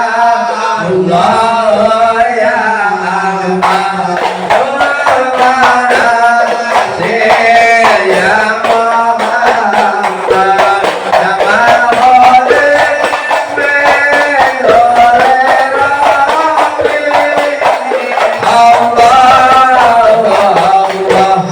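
Male voices singing an Islamic devotional song (sholawat) in a chant-like melody, with hand percussion keeping a steady beat from about three and a half seconds in.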